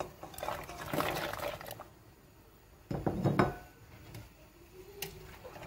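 Fresh calamarata pasta being tipped from a dish into a steel pot of boiling water, with the dish clinking and knocking against the pot. The loudest clatter comes about three seconds in.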